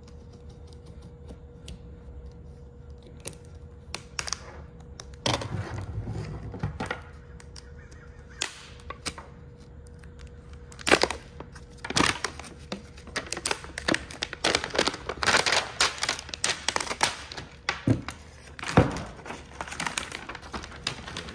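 Blue PVC shrink wrap being cut and torn off an 18650 lithium-ion battery pack. Scattered clicks and crackles come first, then a dense stretch of crackling, rustling plastic about halfway through. A faint steady hum runs under the first half.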